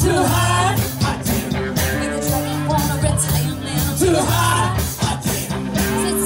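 Live rock band playing a rock-and-roll song: a singing voice over electric guitar and a steady drum beat.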